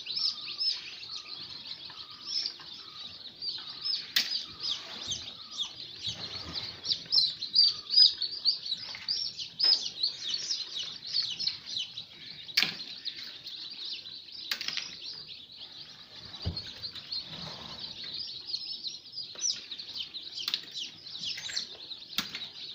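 Many newly hatched chicken chicks peeping without pause, a dense chorus of short high peeps, with a few sharp knocks now and then.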